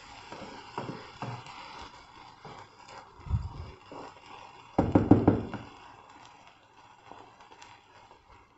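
Wooden spoon stirring wet rice in a metal pan, knocking and tapping against the pan's sides, with a louder rattling burst about five seconds in.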